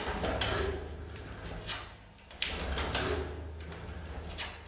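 Ninebot Kickscooter electric scooter's hub motor spinning the wheel under throttle, a steady low hum, with a few short sliding or clicking sounds along the way. No knock is heard in the wheel: this scooter does not have the knocking fault.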